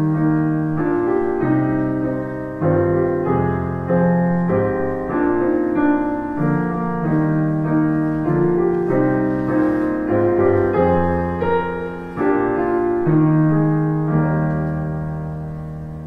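Keyboard playing slow closing music in chords that change about once a second, ending on a long held chord that fades out near the end.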